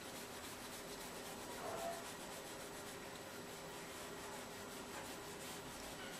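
Rubber eraser scrubbing back and forth over drawing paper, faint, rubbing out pencil guide lines once the pen ink has dried.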